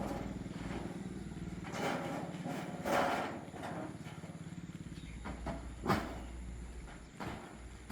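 A motor running steadily with a low hum, with several knocks over it, the loudest about three seconds in and another about six seconds in.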